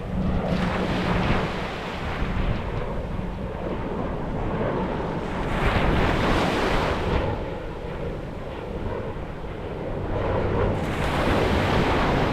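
Sea waves breaking on a beach. Each wave surges in and washes back, about every five seconds, over a constant low rush.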